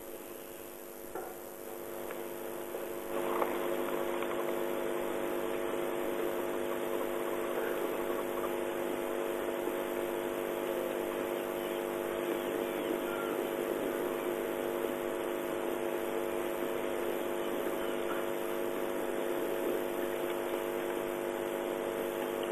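Steady hum made of several even tones over a hiss, getting louder about three seconds in and then holding level.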